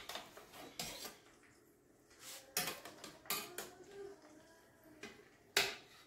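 Scattered light clinks and knocks of a metal utensil against a cast-iron cocotte as the chickens inside are turned and handled, the loudest knock near the end.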